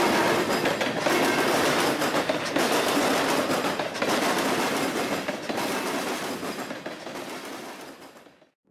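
Freight cars rolling past at close range: a steady, noisy rumble with wheels clacking over rail joints. It fades out near the end.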